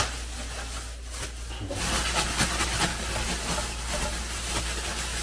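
A plastic bag crinkling and rustling as handfuls of soybean sprouts are pulled out of it into a pan. It gets louder about two seconds in and goes on as a dense run of small crackles.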